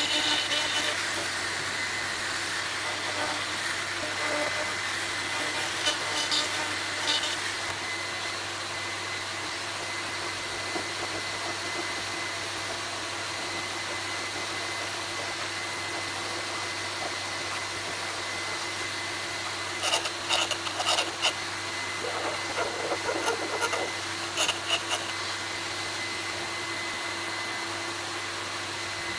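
A vacuum cleaner runs steadily with a constant whine, sucking dust at the slot being cut in a composite fuselage. About two-thirds of the way through come short bursts of a needle file rasping in the slot.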